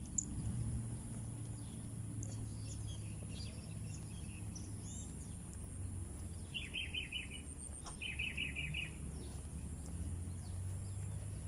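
Small birds chirping over a steady low outdoor background noise, with two short runs of rapid repeated high notes a little past the middle.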